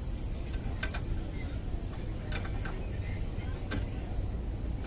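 A few sharp, separate metallic clicks of hand tools against a van's front brake hub and bracket, four in all, over a steady low rumble.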